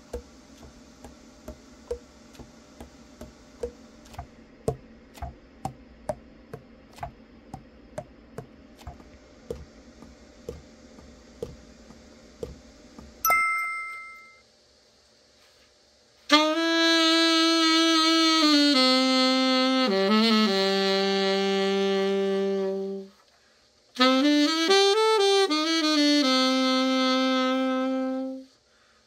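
Pads of a Selmer Mark VI alto saxophone being pressed shut over and over, each closing with a short pop, as a leak test: a clean pop means the pad seals well. A chime ends this part. Then the freshly overhauled saxophone is played: a few long held notes stepping down, and after a short break a phrase that rises and falls and settles on a held note.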